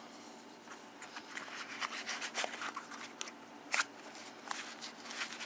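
Handling noise from a small metal multi-tool: irregular light clicks and rustling, with a few sharper clicks.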